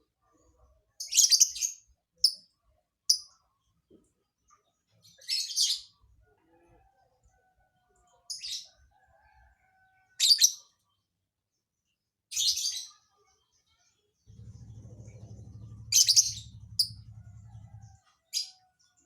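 A lovebird giving short, sharp, high chirps in separate bursts, about ten of them with gaps of one to three seconds between. A low buzzing hum sounds beneath it for about four seconds in the latter part.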